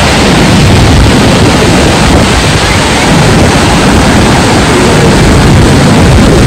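Loud, steady roar of the Horseshoe Falls at Niagara, water plunging into the mist-filled gorge, with wind buffeting the microphone.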